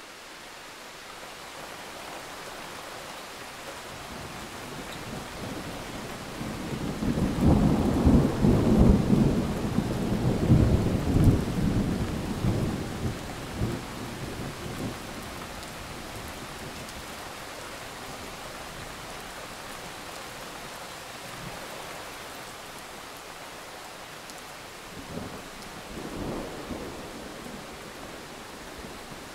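Steady rain with a long roll of thunder building about seven seconds in and fading over several seconds, then a smaller rumble of thunder near the end.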